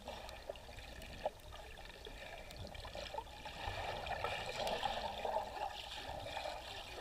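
Bubbling and gurgling of air bubbles heard underwater, a crackling fizz that grows louder about halfway through.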